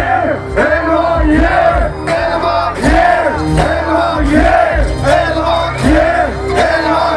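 Live hip hop music with a heavy, repeating bass beat, loud shouted vocals and a crowd yelling along.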